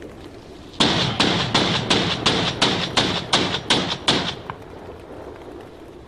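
Gunfire: a quick, evenly paced string of about ten loud shots, roughly three a second, stopping after about three and a half seconds.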